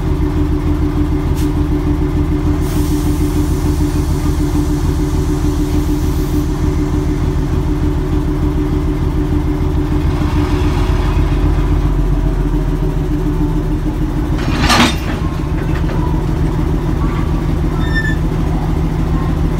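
Diesel locomotive engine idling steadily at close range. A faint hiss sounds from about three seconds in for a few seconds, and a brief sharp noise comes about three-quarters of the way through, after which the engine note changes slightly.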